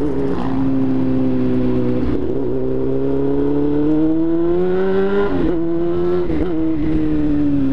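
Honda Hornet motorcycle's inline-four engine running in gear. Its pitch climbs smoothly for about three seconds as the bike accelerates, dips briefly, then settles lower near the end.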